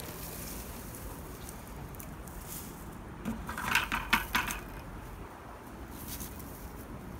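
A quick clatter of clinking knocks during hand potato digging, a handful of hard strikes in about a second, near the middle.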